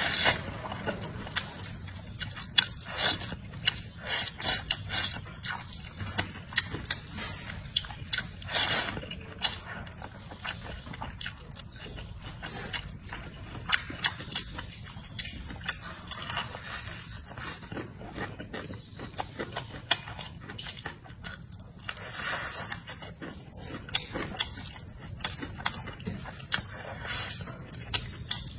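Close-up eating sounds: wide rice noodles in chili oil being slurped and chewed, with many short wet smacks and clicks of the mouth. A few longer, louder slurps stand out, one about a third of the way in and another about three quarters through.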